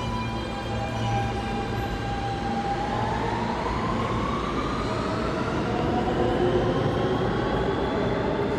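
R42 subway garbage train pulling away in the tunnel: its traction motors whine and rise in pitch as it accelerates, from about three seconds in, over a steady rail rumble.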